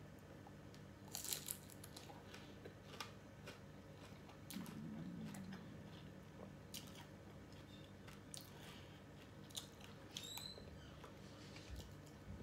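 Quiet, irregular crunching and chewing of crispy battered fried shrimp eaten by hand, with a short closed-mouth hum from the eater about a third of the way in.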